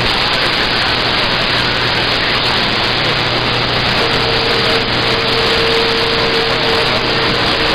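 CB radio receiver static: a steady hiss of band noise from the radio's speaker while no station is transmitting. About four seconds in, a faint steady tone joins the hiss.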